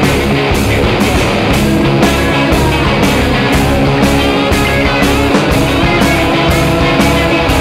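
Rock music soundtrack with electric guitar over a steady drum beat.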